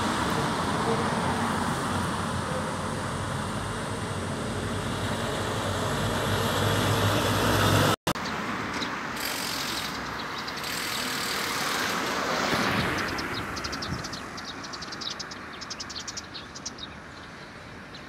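Road traffic passing, a steady rush of vehicle noise that swells and fades, broken off sharply about eight seconds in. Near the end, over the quieter background, come rapid high-pitched ticks.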